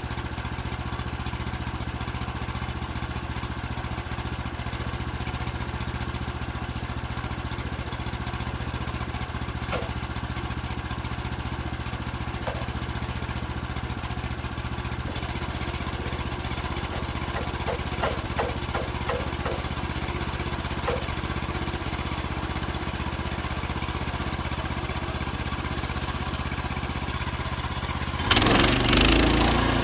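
Small petrol engine of a portable band sawmill running steadily at a low, even speed, with a few light knocks in the middle. Near the end it turns abruptly louder and rougher.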